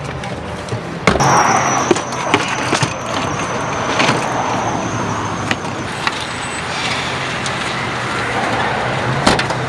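Car sound: a steady vehicle hum with several sharp knocks and clicks, the strongest about a second in. A thin high whine sounds for a few seconds from about a second in.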